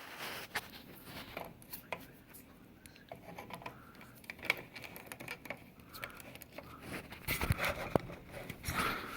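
Handling noise while working on a computer's parts: scattered clicks and rustling, with a cluster of louder knocks about seven to eight seconds in.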